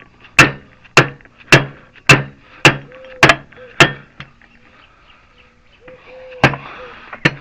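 Hammer blows driving a part into place on a wheel-bearing and CV-axle job: seven evenly paced strikes, about two a second, then a pause and two more strikes near the end.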